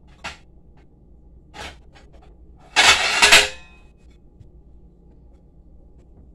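Kitchen handling sounds while food is being prepared: two light knocks, then about three seconds in a loud, noisy burst lasting just under a second.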